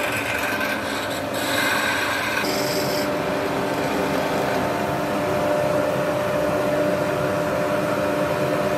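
Lathe running while a cutting tool turns a mandrel blank down to 16 mm: a steady motor hum under the hiss of the cut. A higher tone stops about three seconds in.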